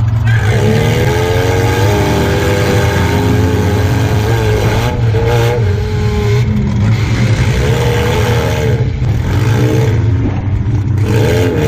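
Engine of a stripped-out compact demolition derby car heard from inside its cabin, revving up and down several times as it is driven.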